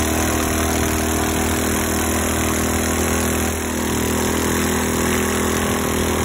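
Predator 212 single-cylinder four-stroke engine on a longtail mud motor, with custom exhaust, air-intake and rejet upgrades, running steadily under load as it drives a 6-inch weedless prop and pushes the boat along. A steady hiss of wind and water spray runs underneath.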